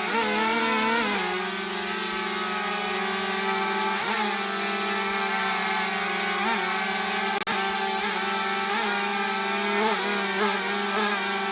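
DJI Mavic Mini quadcopter drone hovering, its four propellers making a steady buzzing whine. The pitch wavers briefly near the start and several more times as the motors change speed.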